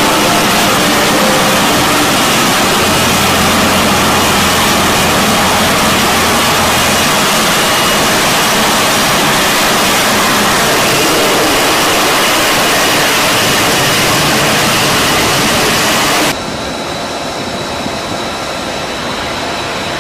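F-35B jet engine and lift fan in a hover: a loud, steady jet noise. About sixteen seconds in it drops suddenly to a quieter, duller jet sound.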